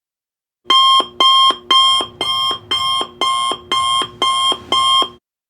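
Digital alarm-clock tone of a countdown timer going off at zero: a loud, high beep repeated about twice a second, nine beeps in all, starting about a second in and stopping shortly before the end.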